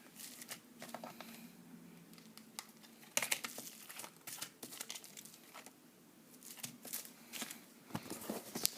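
Packaging crinkling with scattered light clicks and taps as small silver bars are handled and set down side by side, with the loudest bursts about three seconds in and near the end.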